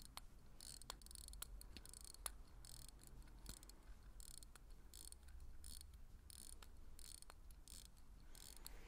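Vostok Amphibia automatic dive watch being hand-wound at the crown. The in-house movement's winding mechanism gives a faint, fine ratcheting in short bursts about twice a second as the crown is turned.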